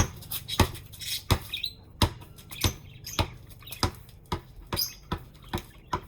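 A basketball being dribbled, bouncing steadily about twice a second.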